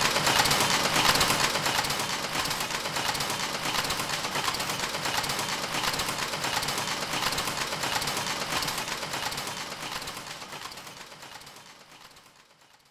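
Dense, rapid mechanical clattering of running machinery, fading out over the last few seconds.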